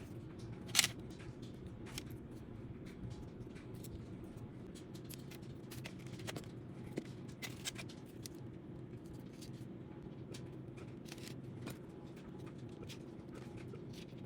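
Low steady hum of a microwave oven running while heating the sugar syrup, with scattered light clicks and taps; the sharpest click comes about a second in.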